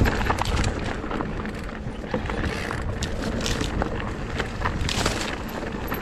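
Lapierre GLP2 electric enduro mountain bike ridden down a rough single-track: tyres grinding over dirt and stones, with irregular clicks and knocks from the bike rattling over bumps. Wind buffets the microphone with a steady low rumble.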